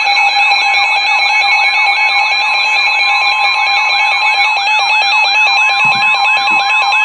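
Weather radio receivers sounding their alert alarms for a flood warning: several steady electronic tones layered with a fast warbling sweep that repeats about four times a second.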